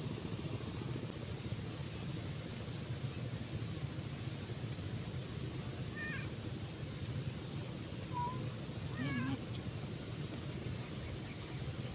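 A ginger-and-white domestic cat meows a few times, short calls about halfway through and again a couple of seconds later, over a steady low rumble.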